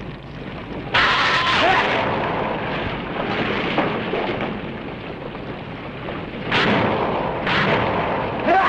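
Special-effects explosions: a sudden loud blast about a second in that rumbles on and slowly dies down, then a second blast about six and a half seconds in.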